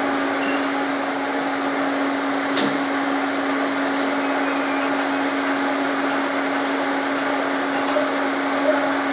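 Welding power source and its water-cooler unit running: steady fan noise with a constant hum. A single click about two and a half seconds in.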